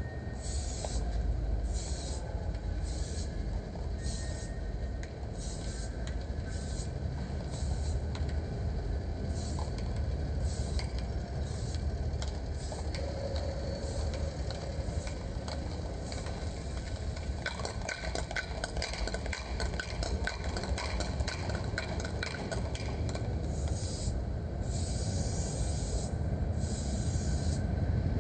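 Aerosol spray-paint can hissing in short, repeated bursts, the last few longer, over a steady low rumble. A run of quick sharp clicks comes in the middle.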